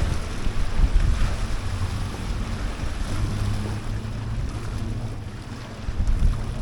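Strong wind buffeting the microphone as a steady, uneven low rumble, over the hiss of waves.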